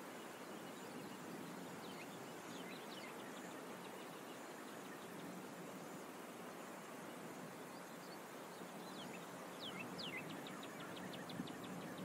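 Steady outdoor background hiss with small birds chirping: a few faint high notes about two seconds in, then louder chirps near the end that run into a quick series of short repeated notes, about eight a second.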